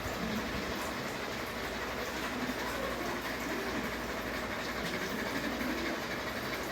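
Ceiling fan running, a steady even noise with no change in level.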